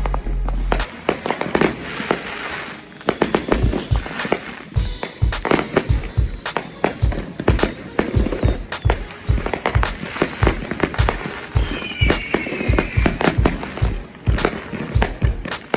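Neighbourhood fireworks and firecrackers going off all around in a steady barrage of sharp bangs and pops, several a second and overlapping.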